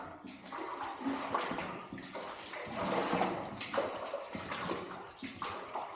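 Shallow standing water sloshing and splashing underfoot as someone wades slowly through a flooded tunnel floor, in uneven swells.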